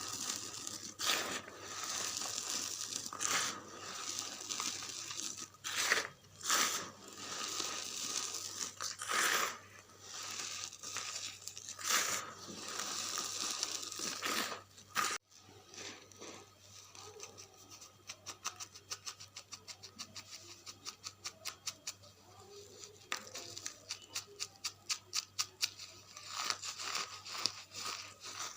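Dry charcoal being crumbled by hand: crunchy crackling with repeated sharp crunches. After a sudden cut about halfway through, it turns to a quick run of small crisp crackles, several a second.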